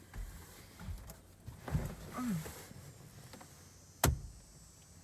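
Handling knocks from a phone and its dashboard phone mount, with one sharp click about four seconds in.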